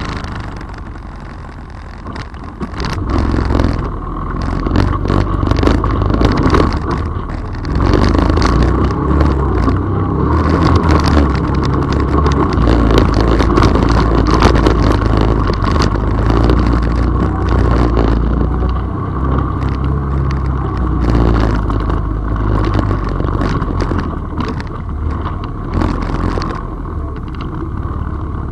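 Dirt bike engine running under changing throttle as it rides a rough trail, with frequent knocks and rattles from the bumps. It is quieter for the first few seconds and louder from about eight seconds in.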